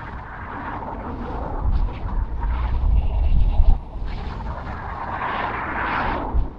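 A car driving along a road: steady tyre and wind noise with a deep low rumble. The noise swells and drops away sharply just before four seconds in, then swells again and falls off near the end.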